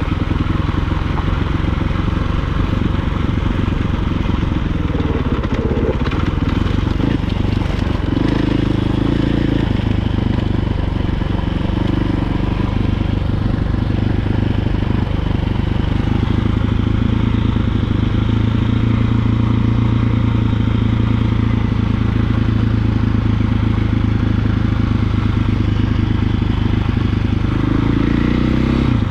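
Dirt bike engine running under way on a gravel road, its revs rising and falling several times.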